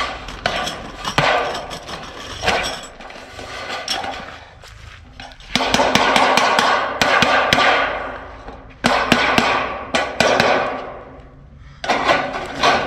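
Irregular hammer blows and metallic knocks while sheet-metal rain gutters and their clamps are fitted, with louder spells of rattling clatter from about halfway on.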